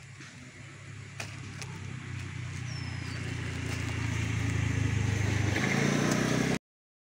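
A motor vehicle's engine hum growing steadily louder as it approaches, then cut off suddenly near the end. A bird gives two short falling whistles.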